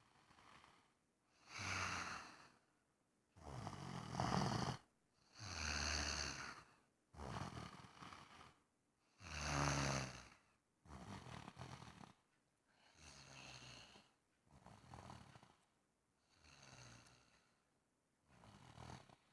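Snoring in a steady rhythm, about ten snores roughly two seconds apart. The snores are louder in the first half and grow softer toward the end.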